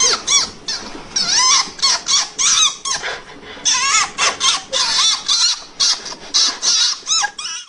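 Fennec fox calling: a rapid string of short, high-pitched yips and squeaks, several a second, each bending up and down in pitch. The calls stop abruptly near the end.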